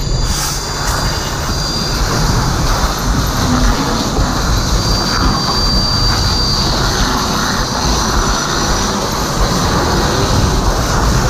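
Steady, loud rushing noise from two fire hose streams flowing onto a burning propane (LPG) tank, the gas fire and the water jets running together.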